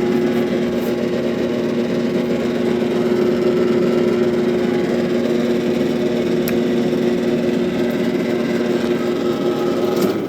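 Clausing Colchester metal lathe running, a steady hum of motor and headstock gearing, with the carriage driven along by the half nuts on the leadscrew.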